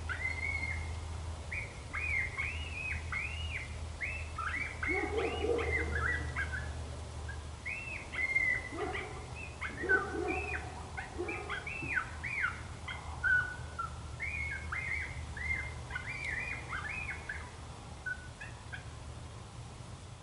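Coyote yip-howl chorus: many short yips rising and falling in pitch, with wavering howls and a few lower barks mixed in.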